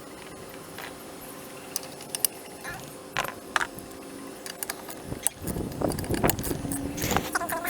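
Small metal parts and tools clicking and clinking as they are handled during work on a backpack blower's engine, with a busier stretch of rattling from about five seconds in.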